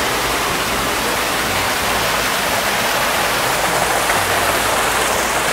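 Steady rush of a spring-fed mountain stream flowing over rocks in a narrow gorge.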